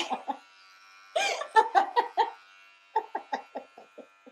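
A woman laughing in bouts; the last is a run of quick pulses that trails off near the end. Under it runs the faint steady hum of electric hair clippers.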